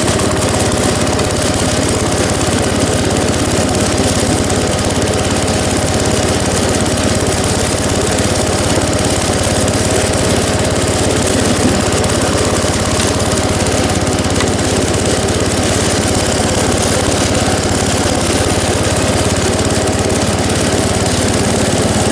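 Old Gravely tractor's engine running steadily under load while driving its snowblower attachment, a continuous, even hum with no change in speed.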